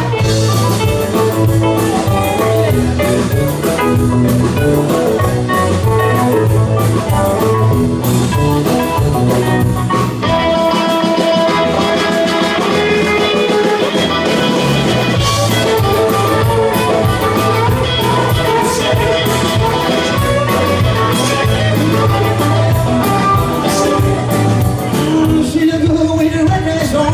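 Live rock-and-roll band playing with electric guitars and a drum kit, a singer over them. The bass line drops away for a few seconds about ten seconds in, then comes back.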